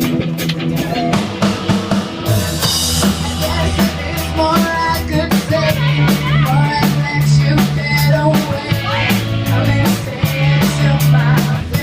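Live rock band playing a song: a drum kit with bass drum and rimshots over steady low bass notes and melodic lines, with a cymbal crash about two seconds in as the full band comes in.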